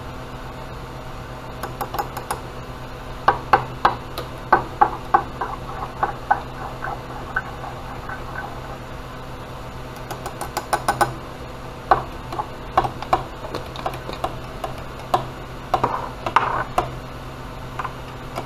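Spoons and stir sticks clinking and scraping against glass measuring cups as hot liquid soft plastic is stirred and flake powder is mixed in: irregular light clicks in clusters, over a low steady hum.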